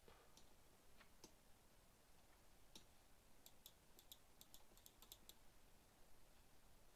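Near silence with faint clicks from a computer's keys and mouse buttons: a few scattered clicks, then a quick run of about a dozen between about three and five seconds in.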